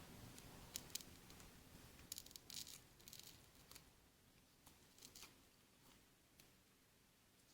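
Faint, scattered scratching and clicking as old screen adhesive is scraped and peeled off the Samsung Galaxy S3's frame, denser in the first half and thinning out after.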